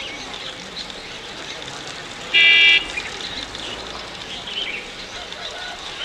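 Small birds chirping and twittering throughout. About two and a half seconds in, a single loud, steady-pitched toot lasts about half a second.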